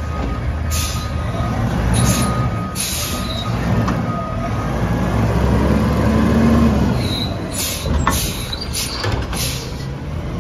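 Automated side-loader garbage truck's diesel engine running under hydraulic load, its pitch rising and swelling around the middle as the lifting arm moves out toward a trash cart. Short air hisses come near the start and again in the second half, along with a few sharp knocks as the arm reaches and grips the cart.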